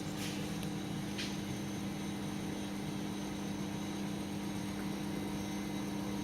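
HERMLE UWF 900 E universal milling machine running, a steady even hum from its motor and spindle drive, with one light click about a second in.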